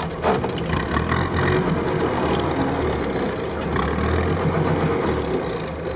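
Jeep Willys engine running and pulling in gear as the open jeep drives over a rough sandy track, with several short knocks and rattles from the bumps. The engine sounds strong at low revs but short of power higher up.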